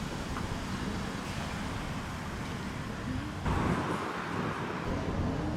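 Road traffic noise: a steady rumble of passing cars, louder from about three and a half seconds in.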